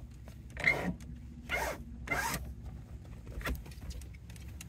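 A camper window shade being slid open by hand in three short sliding strokes, then a lighter one.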